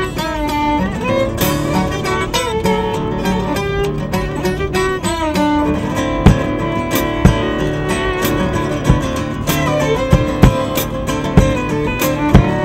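Violin and strummed acoustic guitar playing an instrumental passage, the violin holding long notes with vibrato. From about halfway through, sharp low thumps land roughly once a second on the beat and are the loudest sounds.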